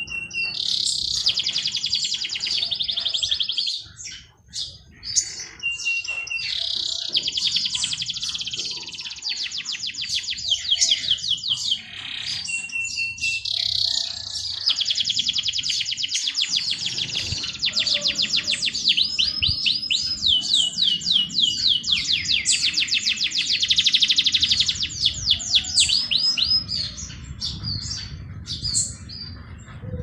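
A songbird singing several long phrases of fast trills, each lasting a few seconds with brief pauses between them. Some phrases open with a short, steady high whistle.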